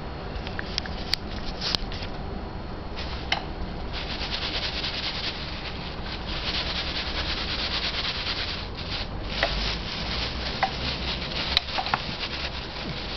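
Tissue paper rustling and crinkling as a cat paws at it and rolls in it, in long stretches with a brief pause about nine seconds in. A few light clicks come through the rustling.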